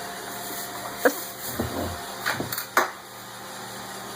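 Roomba robot vacuum running with a faint steady hum, with several short knocks and clatters from about one second in to about three seconds in.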